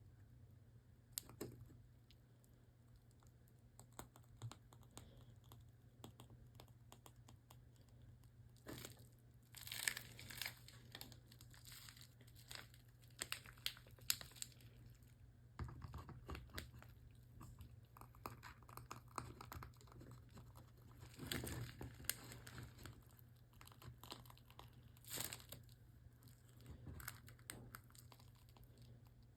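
Faint crinkling and rustling of a plastic piping bag squeezed to pipe whipped soap, in scattered short bursts with small clicks of handling, over a low steady hum.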